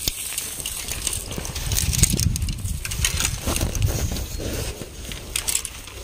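Footsteps crunching and crackling through a thick layer of dry fallen leaves, in irregular steps.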